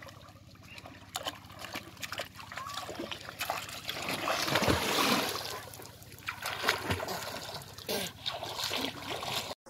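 A person splashing into shallow river water over the side of a wooden rowboat. The splash is loudest and longest from about three and a half to six seconds in, with smaller splashes, dribbling water and light knocks on the wooden hull before and after.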